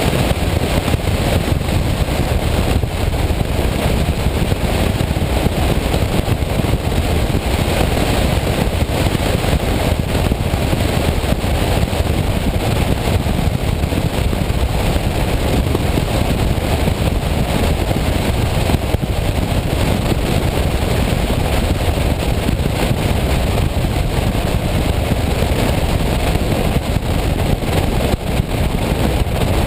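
Steady road noise from a City-EL single-seat electric three-wheeler driving at speed on a wet road: wind rushing over the microphone together with tyre noise, with no engine sound.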